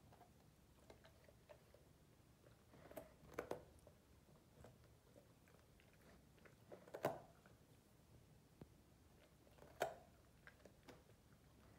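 Great Dane puppy chewing raw carrot pieces: quiet, scattered crunches, a cluster about three seconds in and the loudest ones near seven and ten seconds in.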